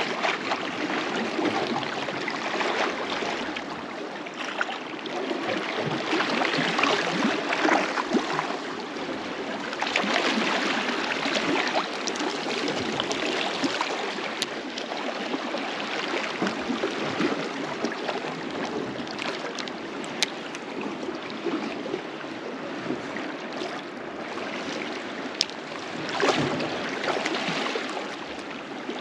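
Small sea waves lapping and sloshing against a rocky, weed-covered shoreline: a steady watery wash that grows and eases every few seconds.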